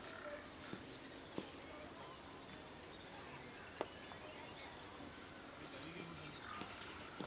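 Faint outdoor background with insects chirping: a steady high hiss and faint regularly repeating chirps. A few soft clicks stand out, the loudest nearly four seconds in.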